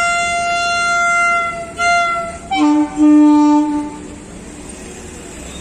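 WAP-7 electric locomotive's twin-tone horn: a long high note, a short second high note, then the low note held for about a second and a half from about two and a half seconds in. After the horn stops, the steady running noise of the passing locomotive.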